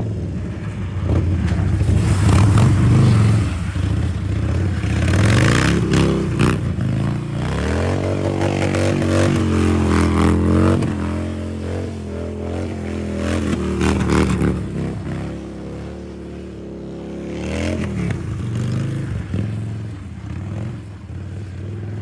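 Harley-Davidson Dyna Street Bob's V-twin engine revving up and down as the studded-tyre bike spins donuts on lake ice, with a few short scraping noises about six seconds in.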